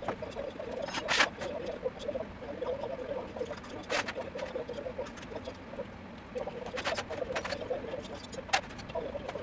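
Metal parts and tools clinking as they are handled in a steel pan: a handful of sharp clinks spread a few seconds apart, the first about a second in. A faint continuous warble sits underneath.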